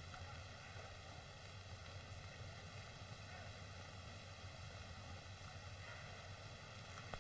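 Faint, steady hiss and hum of an old 1930s film soundtrack, with no other distinct sound.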